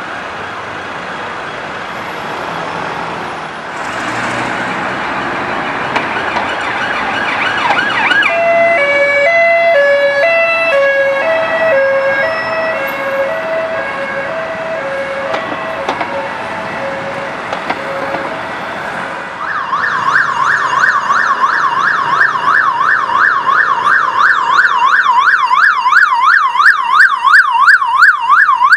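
British police sirens over traffic: first a slow wail rising in pitch, then from about eight seconds in a two-note hi-lo siren alternating between two pitches, and from about twenty seconds in a fast yelp warbling about four times a second, the loudest part.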